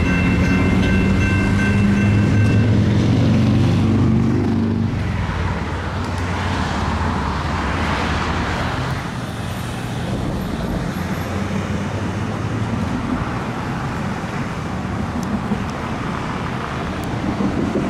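Railroad crossing's GS Type 2 electronic bell ringing, cutting off about three seconds in as the crossing activation ends, over the low rumble of cars at the crossing. Afterwards road traffic goes by, with one car passing loudest a few seconds later.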